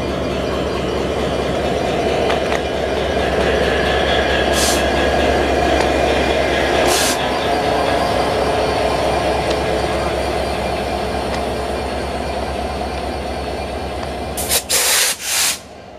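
EMD diesel-electric locomotive's engine running at idle close by: a steady low hum under a broad engine noise that swells and then eases. There are two short hisses in the middle and a few loud bursts of noise near the end.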